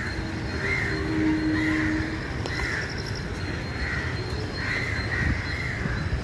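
Crow cawing repeatedly in the background, about eight arched caws at a little over one a second, over a low outdoor rumble.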